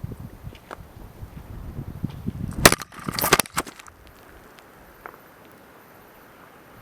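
Footsteps on the forest floor, then a sharp crack and a short burst of crackling, like dry twigs breaking underfoot, about three seconds in.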